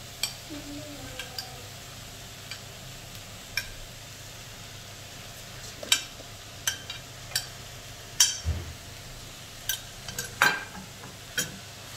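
A metal spatula knocks and scrapes against an iron kadhai at irregular intervals as chopped raw vegetables are tipped in and stirred, over a faint sizzle.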